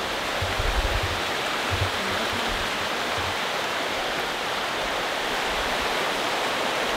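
Rocky mountain stream rushing over rapids: a steady, even rush of water.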